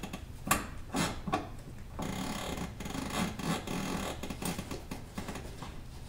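Car seat belt being worked to lock its switchable retractor: a few knocks as the latch plate and webbing are handled, then about two and a half seconds of rapid clicking and rattling as the webbing feeds back into the retractor, the ratchet of the automatic-locking mode that shows the belt is locked.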